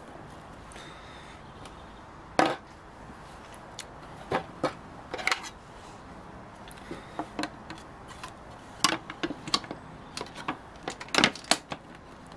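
Plastic covers and parts being handled and fitted around a motorcycle's battery box: scattered clicks and knocks, about a dozen sharp taps spread out with short pauses between them.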